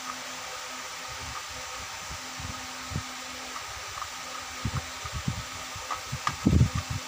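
Steady background hiss with a faint low hum, like a room fan, and a few soft handling knocks that grow denser near the end.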